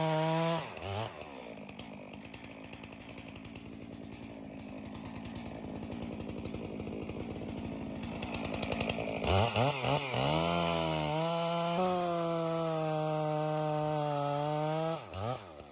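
Chainsaw engine running: briefly at high speed, then dropping back to a low buzzing idle for several seconds; about nine seconds in it is revved up and down a few times, then held at a steady high pitch, and released near the end with the pitch falling away.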